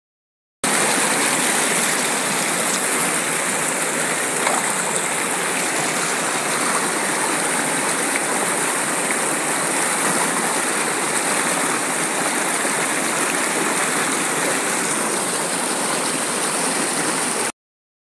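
Small stream of water rushing and splashing as it cascades over rocks in a steady, even flow. It starts suddenly just after the beginning and cuts off suddenly near the end.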